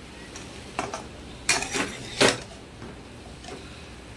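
A cooking spoon scraping and knocking against a pan as boiled potatoes are turned over: three short strokes in the first half, the third the loudest.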